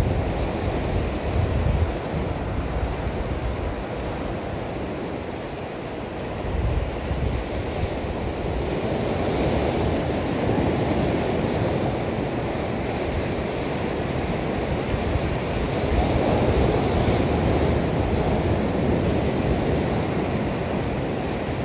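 Ocean surf surging and breaking against shoreline rocks, swelling and easing every few seconds, with wind buffeting the microphone.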